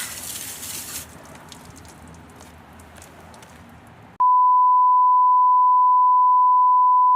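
A steady, high electronic beep of one pure tone, held for about three seconds. It cuts in suddenly about four seconds in, after a faint background hiss with a few light clicks.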